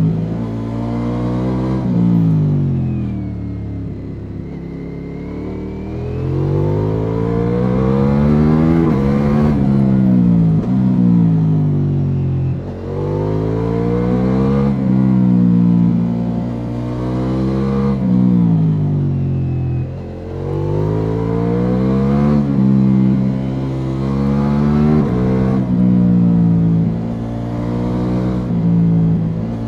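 Ducati Multistrada V4 S's 1158 cc V4 engine through an Akrapovic slip-on exhaust, revving up and down again and again as the bike accelerates out of and slows into a run of corners, its pitch climbing then dropping sharply several times, over a steady rush of wind.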